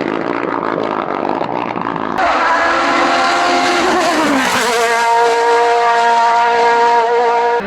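Hillclimb race car engines at full throttle. About two seconds in, the sound switches abruptly to a louder car whose engine climbs through the revs. Its pitch drops once about halfway, like an upshift, then the engine pulls high and steady.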